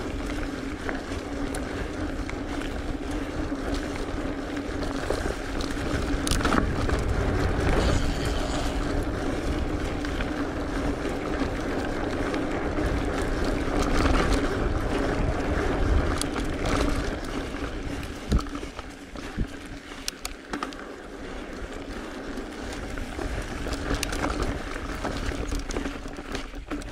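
Mountain bike ridden fast along a dry dirt singletrack: wind rushing over the camera microphone, tyre noise on the dirt, and the bike knocking and rattling over bumps, with a steady hum through most of it that eases off about two-thirds of the way in.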